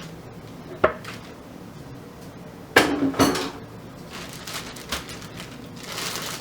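Kitchen bowl and utensils clinking and knocking three times, the last two close together with a short ring, as seasoned catfish pieces are dumped into a cornmeal-and-flour coating.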